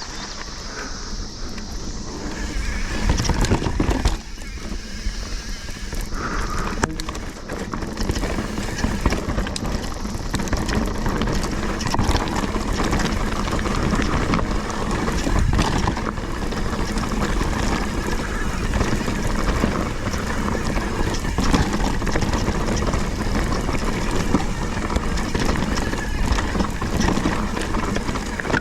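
Mountain bike ridden over a rough trail, picked up by a bike- or body-mounted action camera: a steady rush of wind on the microphone with continual clatter and knocks from the tyres and frame over rocks and roots.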